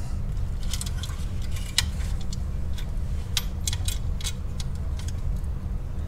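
Light metallic clicks and clinks at irregular intervals as the steel pedal box assembly and its small hardware (nut, washer, pivot pin) are handled and fitted by hand, over a steady low hum.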